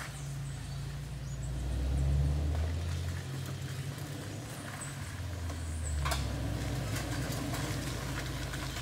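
Off-road 4x4 vehicle's engine running at low speed, swelling twice, with a single sharp knock about six seconds in.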